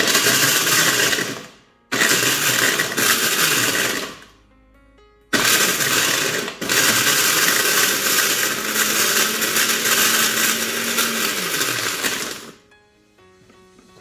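Oster 1400 W blender crushing ice, switched on three times. It runs in two short bursts of about one and two seconds, then a longer run of about seven seconds. The motor pitch climbs at each start and sinks as the last run stops.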